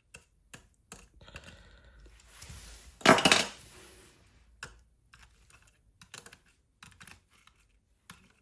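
Small hard clicks and taps of tools and plastic parts being handled while a VR headset is taken apart, with one louder clatter about three seconds in that lasts about half a second.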